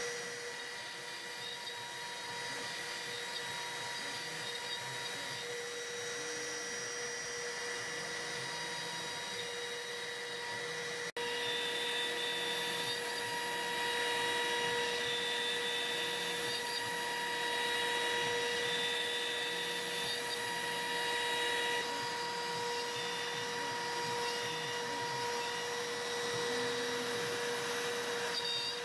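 CNC router spindle whining steadily over a hiss of cutting as a small end mill routes a bowtie-shaped pocket into a hardwood cutting board. A brief break comes about eleven seconds in, after which it runs a little louder.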